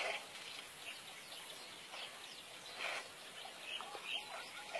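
A few short, high bird chirps, scattered and faint, over a quiet background hiss.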